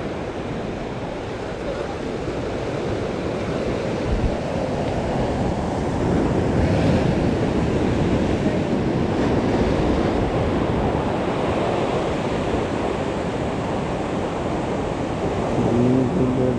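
Sea waves surging and breaking over shore rocks in a steady wash of surf, which grows louder about six seconds in.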